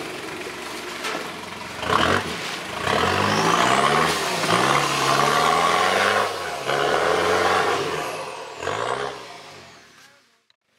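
Off-road pickup truck's engine revving hard in repeated surges as it climbs a steep dirt slope, the pitch rising and falling several times, then fading away near the end.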